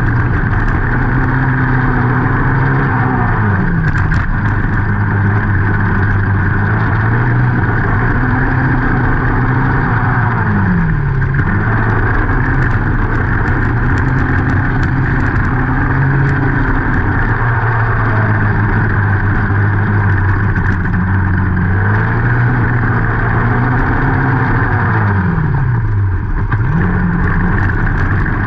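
Youth racing quad's engine, heard from the machine itself, running hard at steady high revs. About every seven seconds the revs drop sharply as the throttle comes off for a turn, then climb again, under a steady rushing noise.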